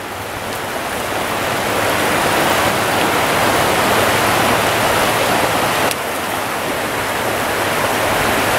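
Steady rush of a shallow stream running over a riffle, growing louder over the first couple of seconds, with a brief dip about six seconds in.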